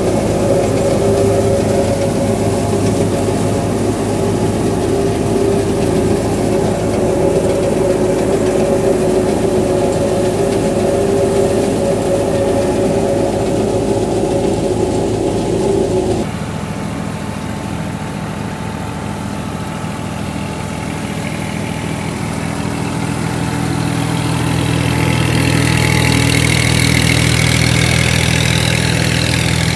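Tractor-driven threshing machine running steadily, its drum and fans turning with the tractor engine under load. About halfway through the sound cuts abruptly to a lower, deeper steady drone that grows louder near the end.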